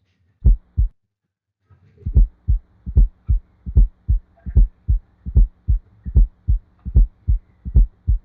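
Recorded heart sounds with an S4 gallop: an extra low sound just before each S1, the sign of a stiff, hypertrophied ventricle. Two thuds, a pause of about a second, then a steady run of low thuds about two and a half a second over a faint hum.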